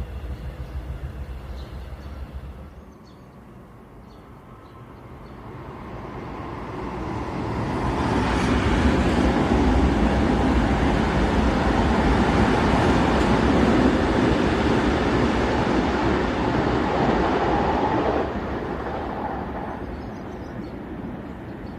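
Train passing: a rumble builds over several seconds, stays loud for about ten seconds, then drops off suddenly about eighteen seconds in and fades.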